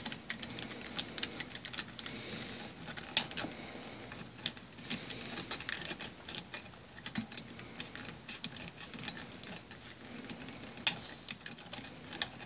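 Small hand ratchet clicking in short, irregular runs, with light metal clinks of a socket on fasteners at the base of a motorcycle engine's cylinders.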